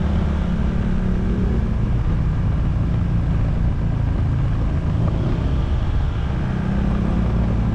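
Honda ADV160 scooter's single-cylinder engine running steadily on the move, with road and wind noise; the engine note eases slightly about a second and a half in and picks up again near the end.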